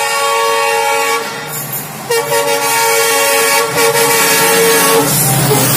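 Train air horn sounding twice: a blast that cuts off about a second in, then a longer blast of about three seconds. Near the end the horn stops and the rumble of the passing WDG4 diesel locomotive, an EMD 16-cylinder two-stroke, takes over.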